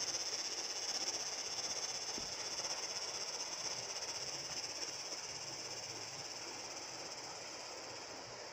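Outdoor ambience in a coffee plantation: a steady high-pitched hiss over a softer rushing noise, slowly getting quieter.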